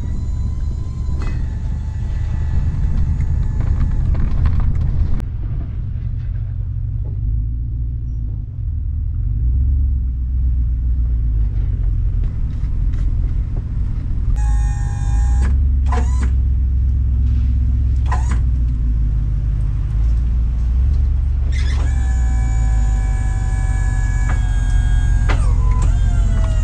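A tow truck driving with a vehicle in tow: a loud, steady low engine and road rumble. A high, steady whine comes in over it at times, and near the end it drops in pitch.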